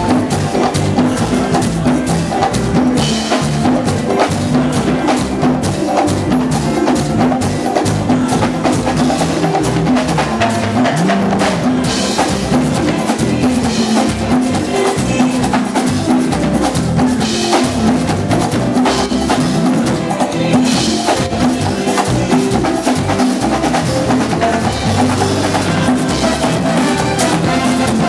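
Live Latin dance band playing, with hand drums and percussion driving a steady beat and singers at the microphones.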